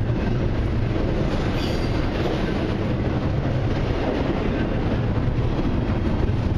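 Long CN intermodal and autorack freight train rolling past, a steady rumble and rattle of its wheels on the rails.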